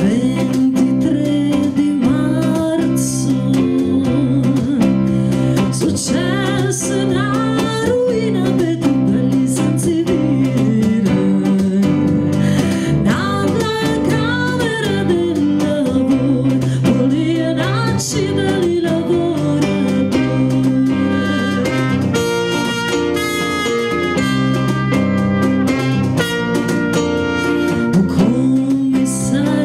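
A small band playing a song: a woman singing a slow, gliding melody over guitar, keyboard and percussion.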